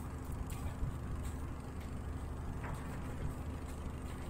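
An engine's steady low hum, with a few faint clicks on top.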